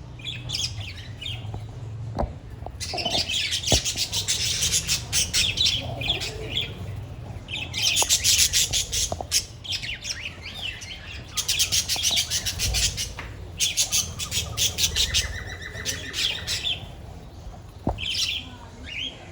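A flock of budgerigars chattering, in fast runs of sharp, high chirps and squawks broken by short pauses, with a brief held whistle near the end.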